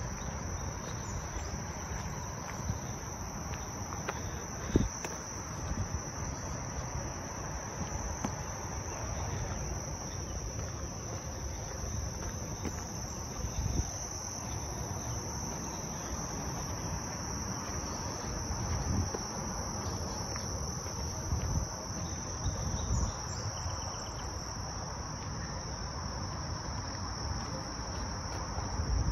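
Crickets calling in one unbroken, high-pitched trill, over low rumbling with a few knocks, the sharpest about five seconds in.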